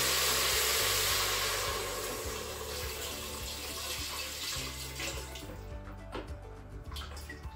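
Chicken stock pouring from a plastic measuring jug into a pressure cooker's inner pot: a steady splashing pour that tapers off over the first few seconds as the jug empties.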